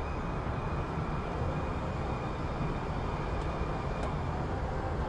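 Steady, even rumble of traffic, a city street's background hum with no distinct events.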